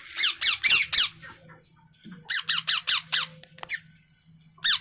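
Birds squawking in three bursts of quickly repeated calls, about four or five a second, each call falling in pitch.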